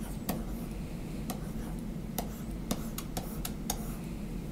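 Stylus clicking and tapping on a drawing tablet during handwriting: about eight light, irregularly spaced clicks over a low steady background hum.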